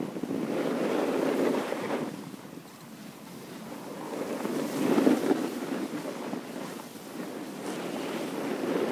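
Wind rushing over a phone's microphone as it moves down a ski slope. The rush swells twice, about a second in and again about five seconds in.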